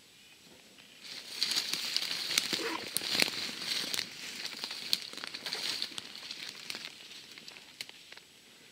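Dry twigs and dead branches crackling and snapping as someone walks through dense deadfall brush, starting about a second in and tapering off near the end.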